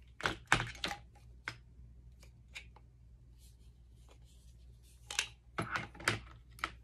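Metal parts of a drill nibbler attachment clicking and clacking as they are picked up and set down in a hard plastic carry case: a burst of knocks near the start, a few scattered clicks, then another cluster about five to six seconds in.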